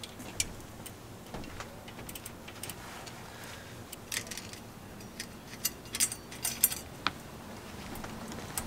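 Irregular light metallic clicks and clinks from hand work on a bicycle's drivetrain at the crankset and chain, sparse at first and in denser clusters in the second half.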